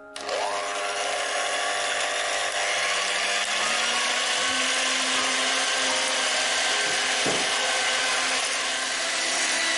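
Electric hand mixer switched on at high speed, its twin wire beaters whisking raw eggs in a glass bowl. It starts suddenly, spins up within a fraction of a second, then runs steadily.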